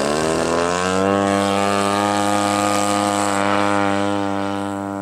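RC Yak-54 model airplane's engine and propeller throttling up for takeoff: the pitch rises over the first second, then holds steady as the plane rolls out and lifts off, getting a little quieter near the end.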